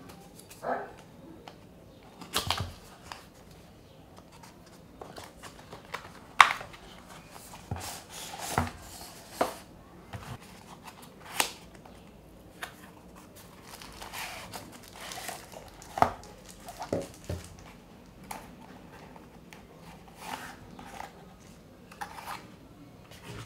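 Cardboard packaging being opened and handled: a carton flap pulled open, an inner box slid out and its tabs worked, paper wrappers rustling and crinkling. The sounds come as scattered taps, scrapes and rustles, a few sharper than the rest.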